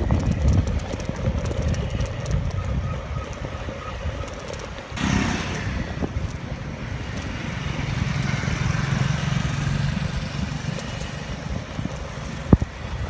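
A motor vehicle, motorcycle-like, running on the road over a steady low rumble, with a louder surge about five seconds in and a sharp click near the end.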